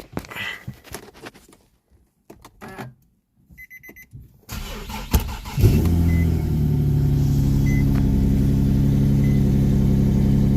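Scattered clicks and knocks, a few quick electronic beeps from the car, then the Infiniti G37's new starter cranks its 3.7-litre V6 for about a second before the engine catches, flares briefly and settles into a steady idle. The starter replacement has cured the no-start.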